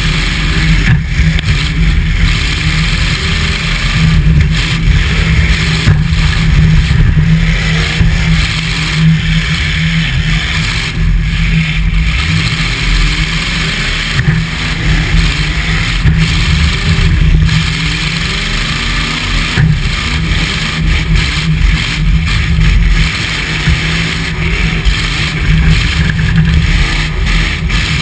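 Demolition derby pickup truck's engine revving up and down, loud, heard from inside the stripped-out cab.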